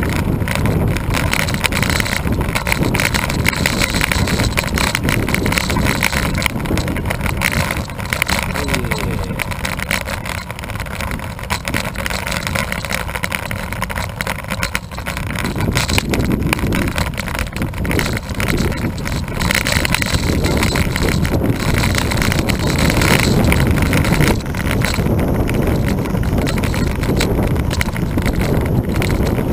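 Wind rushing over the microphone of a camera riding on a road bicycle, mixed with tyre noise on the asphalt. It eases for several seconds in the middle.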